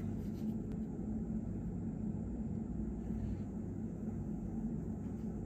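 Steady low hum and rumble of background room noise, with no distinct events.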